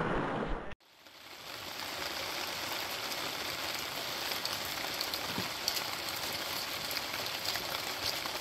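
Steady rain falling, with scattered drops ticking close by. For under a second at the start, a rushing creek is heard, and it cuts off abruptly.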